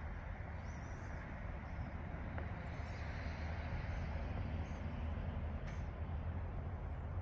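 Steady outdoor background noise: a low rumble with a soft hiss above it, and a few faint, brief high chirps.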